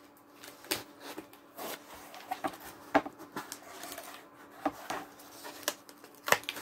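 Cardboard shipping box being opened and handled by hand: irregular taps, scrapes and rustles as the flap is lifted and the contents are touched.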